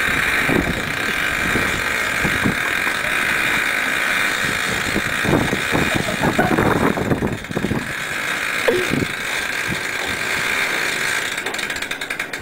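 A shut-down Class 37 diesel locomotive making irregular, moped-like puttering and knocking over a steady high whine. The uploader calls it an extreme case of the engine ticking as it cools, as if it tried to thrash while off.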